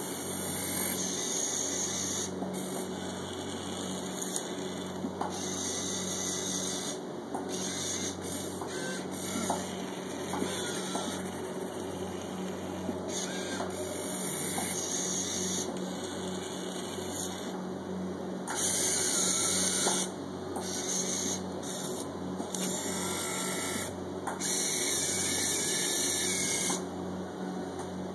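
Small electric motors and gears of a 1:50-scale RC Komatsu PC1250 excavator model whirring, starting and stopping every second or two as its functions are worked, over a steady low hum.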